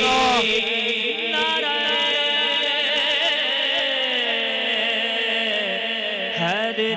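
A male naat reciter singing a slow, wavering wordless line through a microphone and PA, over a steady low drone held beneath it.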